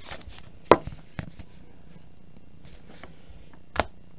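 A trading card in a hard clear plastic holder being handled and set down on a table: a few sharp plastic clicks and taps, the loudest under a second in and another near the end.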